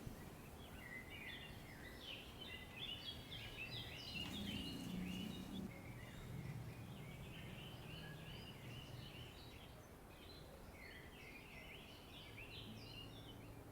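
Small birds twittering faintly over a steady background hiss: rapid runs of short, high chirps that come in three spells, with brief pauses between them.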